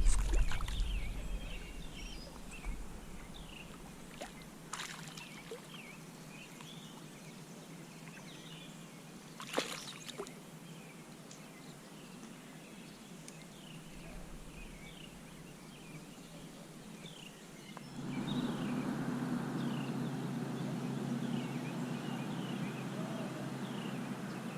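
Outdoor ambience with small birds chirping over and over, a low rumble fading away at the start, and a couple of sharp clicks. About three-quarters of the way in a steady low hum comes up and holds.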